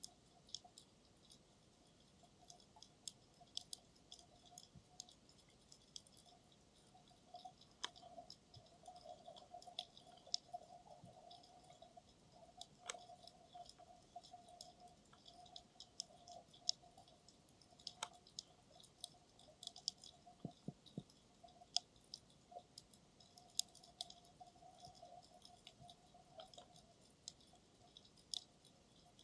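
Faint underwater sound picked up through a camera's dive case on the seabed: a steady, irregular scatter of sharp clicks and crackles, with a faint hum that comes and goes from about a quarter of the way in.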